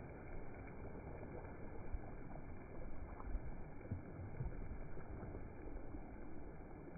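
Shallow waves washing in over wet sand at the shoreline: a steady low rush of surf with irregular low bumps.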